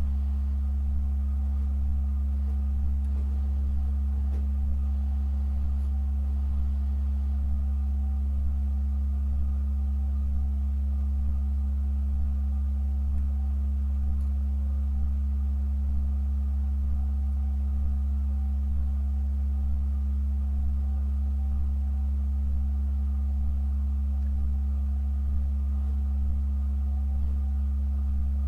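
Pipe organ holding a deep, steady low note with a quieter tone above it and faint higher pitches, sustained without change, with a slight pulse about once a second.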